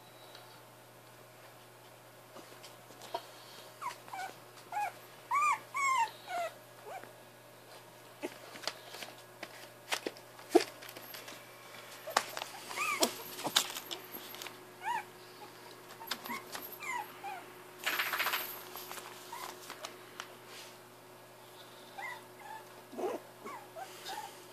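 Jack Russell terrier puppies whimpering, with short high squeaks that come in scattered clusters and rustling bedding in between.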